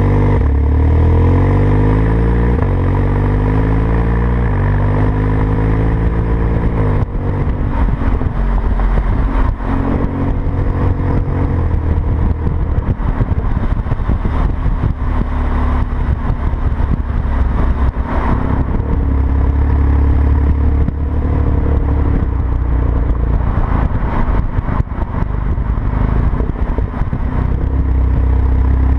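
Porsche 991 Turbo S twin-turbo flat-six through a Sharkwerks exhaust, recorded at the tailpipes, with the exhaust not in Sport or Sport Plus mode. The car accelerates, its pitch climbing and dropping back at quick gear changes over the first seven seconds. It then settles into a steadier drone mixed with road and wind rush.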